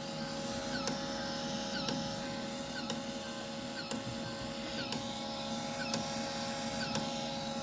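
A powered-on Macintosh SE, a compact CRT computer, running with a steady hum from its fan and electronics, holding two steady tones, and faint ticks repeating about every two-thirds of a second.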